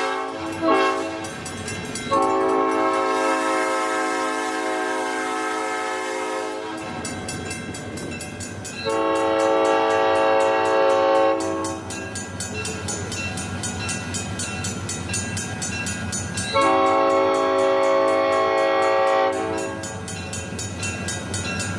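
Southern Pacific E9 locomotive 6051's air horn sounding a multi-note chord in four blasts: a brief toot, a long blast of about four and a half seconds, then two shorter blasts of two to three seconds. A steady low rumble carries on between the blasts.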